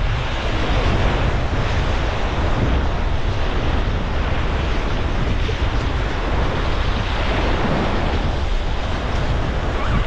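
Whitewater rapids rushing around a packraft, a steady loud wash of churning water, with wind buffeting the microphone.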